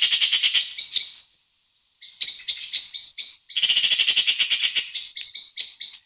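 Magpie chattering: runs of rapid rattling notes, about ten a second, broken by short pauses.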